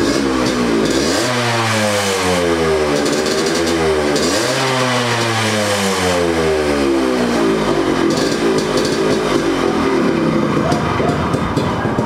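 Yamaha RX100's 98 cc air-cooled two-stroke single running just after its exhaust leak repair. The throttle is blipped twice, each time the revs falling away over a few seconds, then the revs are raised slowly again before the engine cuts off at the end.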